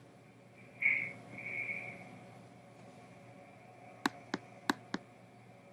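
A short high-pitched tone about a second in, held in two parts, then four computer-mouse clicks in quick succession near the end.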